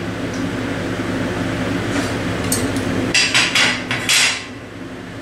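A cluster of sharp metallic clicks and clatters about three to four seconds in, like a loose metal fan grille being handled and set down, over a steady low hum.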